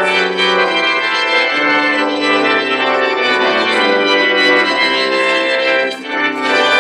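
Organ music of long held chords, with a brief drop in the sound about six seconds in.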